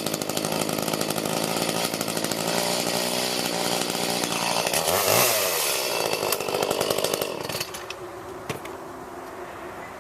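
Old Echo chainsaw's two-stroke engine running, revved up and back down about halfway through, then shut off a couple of seconds before the end, followed by a single click.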